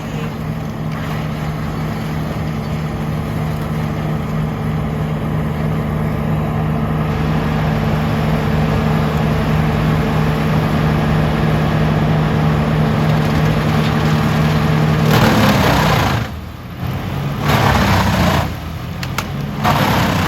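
The 440-horsepower wood chipper's engine running steadily under power. About three quarters of the way through, a loud rough noise takes over, rising and falling, as material goes through the chipper.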